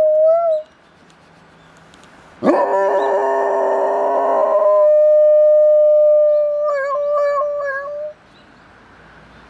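Golden retriever howling in long, drawn-out howls. One howl ends about half a second in. A new one starts abruptly about two and a half seconds in, rough and full at first, then holds one steady pitch and wavers before stopping about eight seconds in.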